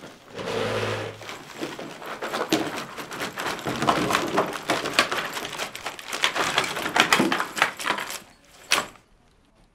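Contents of a backpack being shaken out onto a desk: a long, busy clatter of bottles and packaged toiletries tumbling and knocking together, ending in one last sharp knock near the end.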